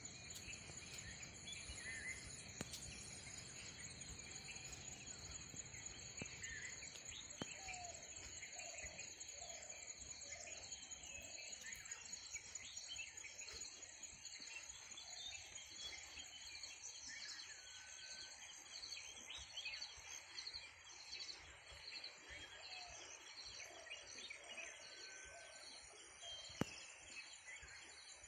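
Faint rural ambience: a steady, high-pitched insect chorus with birds chirping, including two short runs of four or five repeated notes. A single sharp click sounds near the end.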